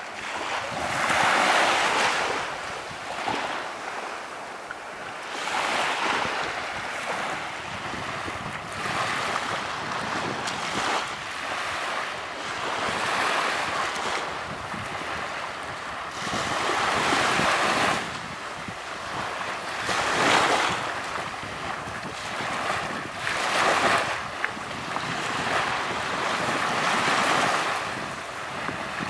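Small waves breaking and washing onto a beach, the hiss of surf swelling and fading every few seconds, with some wind noise on the microphone.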